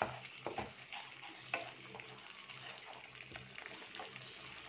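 Curd and onion masala sizzling faintly in a frying pan as a spatula stirs it, scraping and tapping the pan every now and then. The curd is coming to a boil and starting to release its oil.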